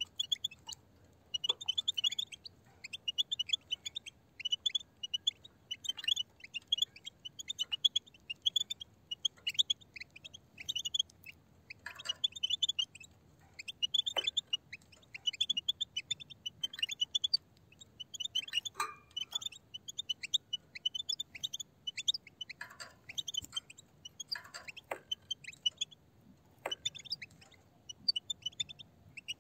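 A flock of European goldfinches twittering: fast runs of high chattering calls with short gaps between them.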